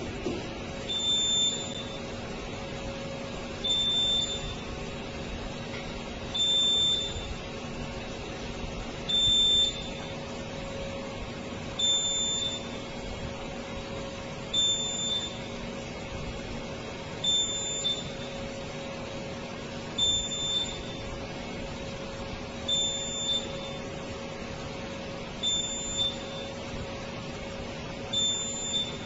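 A smoke alarm beeping: a short, high-pitched beep about every two and a half seconds, over a steady low hum.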